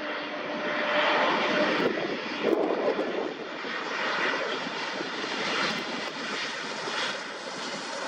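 Twin turbofan engines of a landing Embraer E-Jet, a steady rushing jet noise that grows louder as the airliner passes low and flares over the runway.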